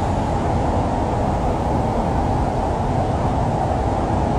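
Floodwater rushing fast along a street: a deep, steady rushing noise without breaks.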